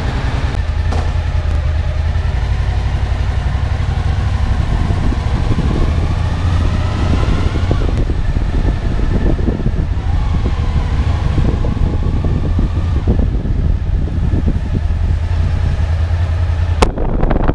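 Motorcycle engine running at idle with a steady low hum, its pitch rising twice as the bike is ridden off. A sharp click near the end.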